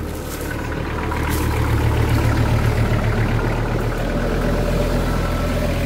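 Kubota GL46 tractor's diesel engine running under load. It revs up about a second in, holds there, then eases slightly near the end, as the tractor strains to pull free while caught on a tree on a slippery slope.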